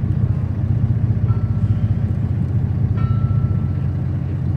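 Boat engine idling with a steady low drone. Twice, a faint thin high tone sounds briefly over it, the second about three seconds in.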